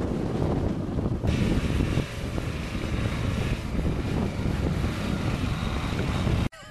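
Off-road 4x4 engines labouring up a steep rutted track, heavily buffeted by wind noise on the microphone. The sound cuts off abruptly near the end.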